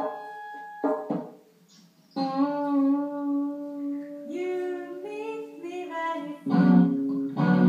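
Short pre-recorded music samples played through a small amplifier, set off by touching the sensor wires of an Arduino jellyfish sound installation. A couple of decaying plucked notes come first, then after a brief pause a held, wavering melody like singing, and loud, dense chords near the end.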